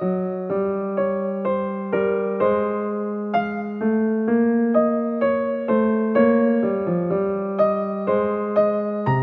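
Background music: a piano or electric-piano melody of evenly spaced notes, about two a second, each note struck and fading.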